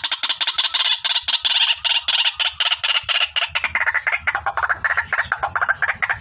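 Female white-breasted waterhen calling: a fast, unbroken run of harsh repeated notes that slowly falls in pitch.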